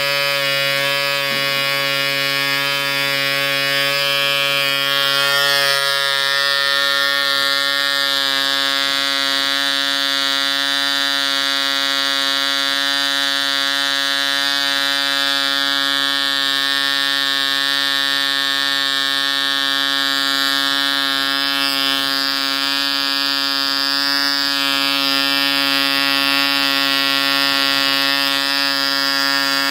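Mills .75 model diesel engine, a tiny two-stroke compression-ignition engine, running steadily at high speed with a loud, even buzz.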